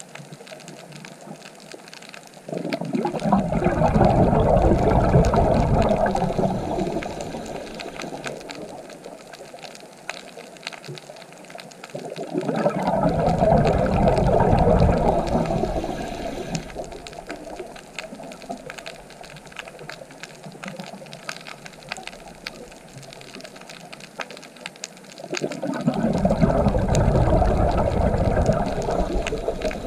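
A scuba diver's exhaled air bubbling out of the regulator: three long rushes of bubbles about ten seconds apart, each swelling and fading over a few seconds. Faint crackling clicks run underneath throughout.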